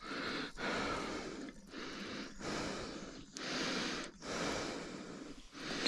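A man breathing heavily close to the microphone, in a run of steady in-and-out breaths.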